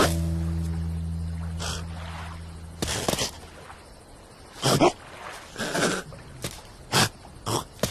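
Cartoon sound effects: a low droning tone fades away over the first three seconds, then a string of short, sharp hits and swishes follows.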